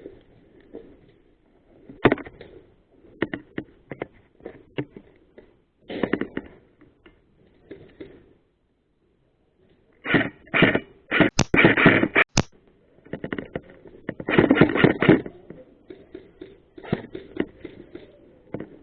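Irregular sharp clicks and knocks from an airsoft player's gun and gear, with a dense cluster of louder sharp cracks about ten to twelve seconds in.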